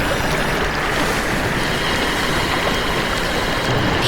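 A steady rushing noise at a constant level.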